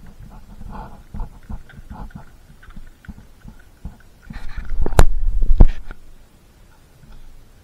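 Dog gnawing a raw lamb leg bone: a run of small wet crunches and clicks, then a louder spell of low thumps with two sharp knocks about five seconds in as the bone is moved about.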